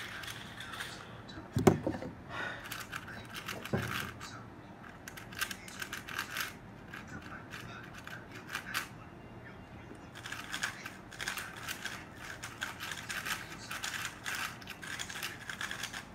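A 3x3 speedcube clicking as it is turned, sparsely at first and in a dense rapid run from about ten seconds in during a timed solve. Two thumps come in the first four seconds.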